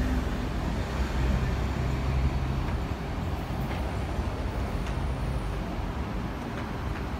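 City road traffic: a steady hum and low rumble of passing vehicles, a little louder in the first few seconds.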